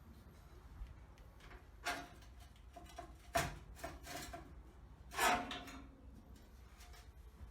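Metal parts or tools being handled during engine repair work: a few separate clinks and knocks with a short metallic ring, the loudest about five seconds in.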